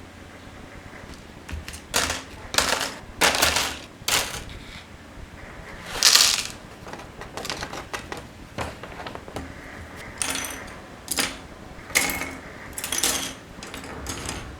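Plastic Gunpla model kit parts being handled and worked: a string of irregular sharp clicks, snaps and short scrapes, about a dozen in all, with the loudest about six seconds in.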